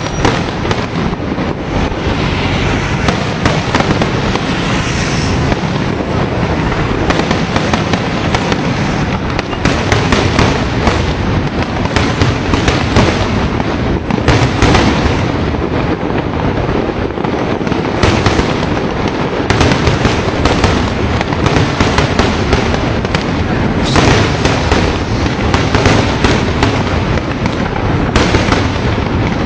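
Aerial fireworks display going off in quick succession: a continuous crackle and rumble of bursts with many sharp bangs, densest around the middle and near the end.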